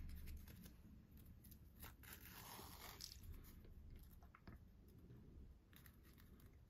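Faint crinkling and rustling of a small folded paper slip being unfolded between the fingers, with a longer rustle about two to three seconds in.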